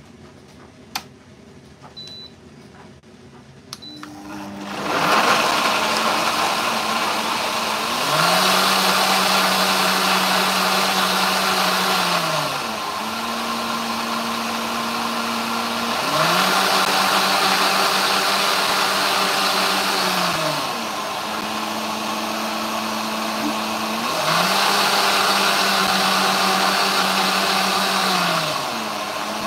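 Countertop high-speed blender starting up about four seconds in and running loudly, puréeing canned peaches and yogurt; its motor pitch dips lower and swells back up in a repeating cycle about every eight seconds.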